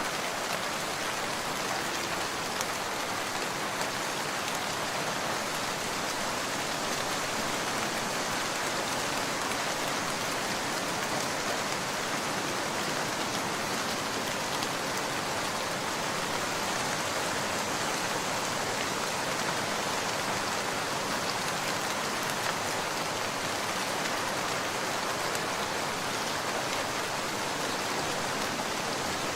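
Steady rain falling, an even unbroken hiss with faint scattered drop ticks.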